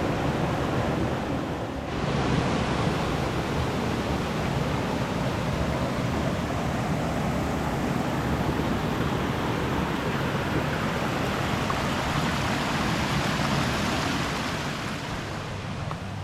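Waterfall pouring into a deep pool, a steady full rush of water with a brief dip about two seconds in.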